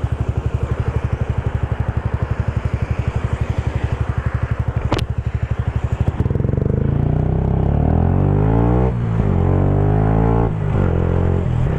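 Yamaha YZF-R125's single-cylinder four-stroke engine putters evenly at low revs, then pulls away, rising in pitch, with breaks about nine and ten and a half seconds in that fit gear changes. A sharp click comes about five seconds in.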